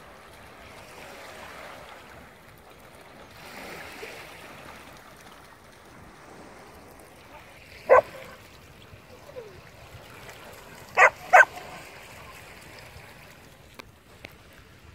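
A dog barks once, then about three seconds later twice in quick succession, over a soft wash of shallow water at the shoreline.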